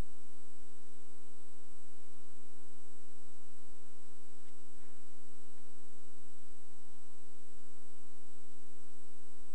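A steady electronic hum made of several held tones that does not change in pitch or loudness.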